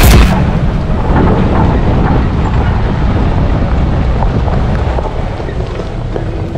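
Jeep engine running at low speed as the Jeep crawls up onto a boulder, with wind buffeting the microphone as a steady low rumble.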